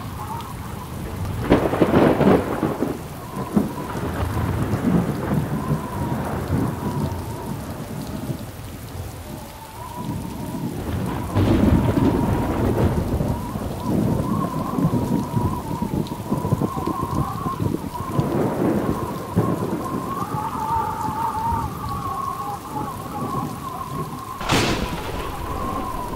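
Thunderstorm: rain falling steadily with thunder rolling several times and a sharp crack near the end, a thin wavering tone held underneath.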